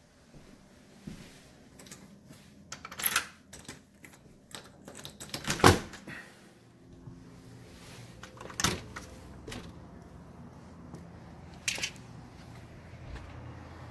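Scattered clicks and knocks of a door and of handling, the loudest about halfway through. A low steady hum comes in during the second half.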